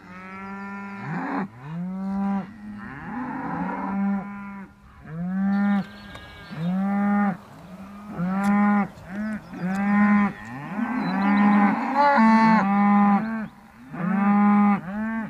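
Cattle mooing: a long series of short calls, about one a second, with a few brief pauses.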